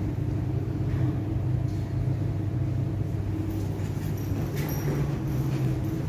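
A steady low machine hum with a rumble under it, holding level.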